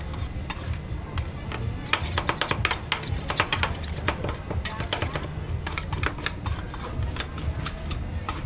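Metal spatulas tapping, chopping and scraping on the steel cold plate of a rolled-ice-cream stand, working toppings into the freezing cream. A fast, dense run of clicks about two seconds in, then scattered taps, over background music with a heavy bass.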